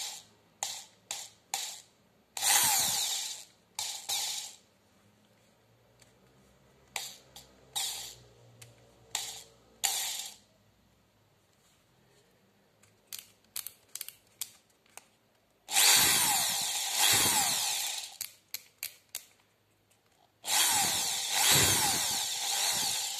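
INGCO 500-watt corded electric drill running free, switched on in many short trigger blips that spin the motor up and let it wind down. Two longer runs of two to three seconds come in the second half.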